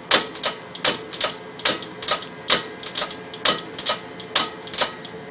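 Franklin bells ringing: a small metal clapper, moved by static charge, swings back and forth and strikes two bells in turn, about two to three light strikes a second, each with a short ring.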